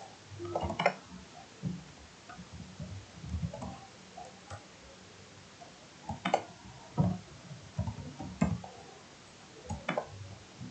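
Computer keyboard typing: irregular key clicks and taps with short pauses between them, a few strokes louder than the rest.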